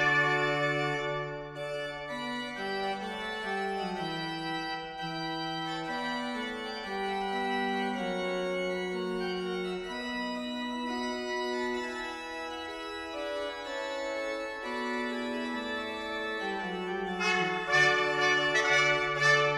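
Church pipe organ playing a slow passage of held chords that change step by step. Trumpets sound briefly at the start and come back in, brighter and louder, near the end.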